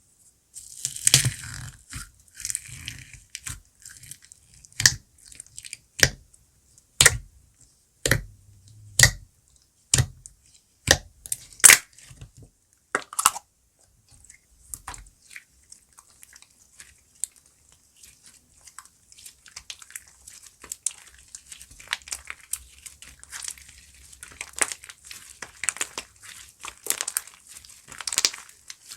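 Slime worked by hand. Sharp clicking pops come about once a second for the first twelve seconds, then give way to a softer, continuous crackling that grows toward the end.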